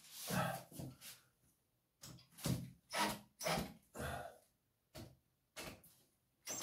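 Irregular short knocks and rustles of objects being handled, about a dozen spread over a few seconds with quiet gaps between.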